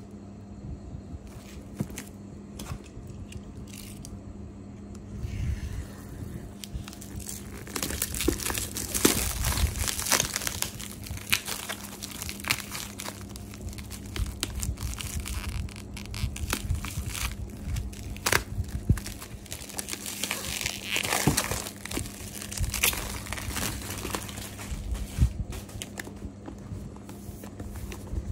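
Clear plastic cling film crinkling and tearing as it is stripped off a cardboard product box, with irregular rustling and sharp crackles, plus small knocks from handling the box.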